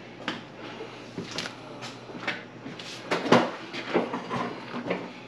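Irregular knocks and clicks from a sliding closet door and things being handled in the closet, the loudest a little over three seconds in.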